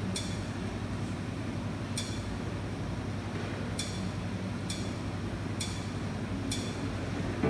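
Steady low hum and hiss from a boombox that has just been set playing, broken by six short, high clinking ticks, the last four about a second apart.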